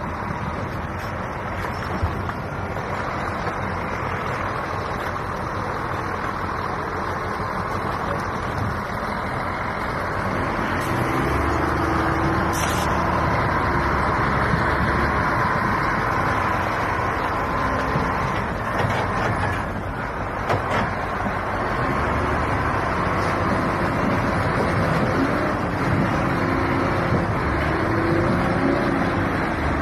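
Heavy truck engines running hard under load as a semi-trailer is dragged through broken ice and slush. The engine gets louder and deeper about ten seconds in.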